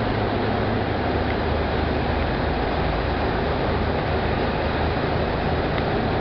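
Ford Model A's four-cylinder flathead engine running steadily while under way, under a constant rush of wind, tyre and traffic noise echoing in a road tunnel.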